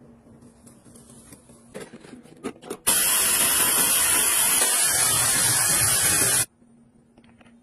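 Handheld hair dryer blowing, a loud steady rush of air that starts suddenly about three seconds in and cuts off abruptly some three and a half seconds later. Before it there are a few light handling clicks.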